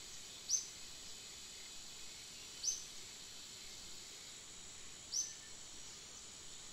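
Steady high insect drone of the forest, with three short, sharp high chirps about two and a half seconds apart.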